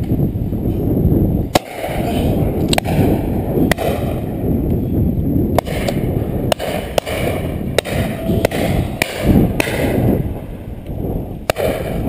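Shotguns firing along a line of guns at driven pheasants: about a dozen sharp shots at irregular intervals, most of them distant, over a steady rumble of wind on the microphone.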